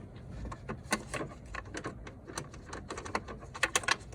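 Irregular light metallic clicks and taps of a socket wrench with a 12 mm socket on an extension, knocking against the manifold bolt and engine parts as it is worked onto the bolt head.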